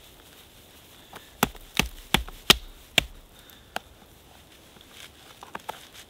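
Wood being chopped or split with sharp, hard strikes: a quick run of about six blows, then a few light taps near the end.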